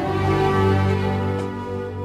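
Background music of held, sustained low notes, with no speech.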